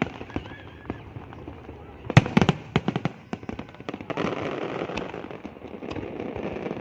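Fireworks going off: a quick cluster of sharp bangs about two seconds in, then from about four seconds a dense spell of crackling with scattered reports.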